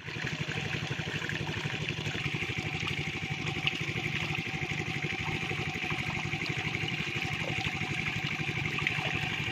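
Small engine-driven water pump running steadily, with water gushing and splashing from its outlet as it drains the pond.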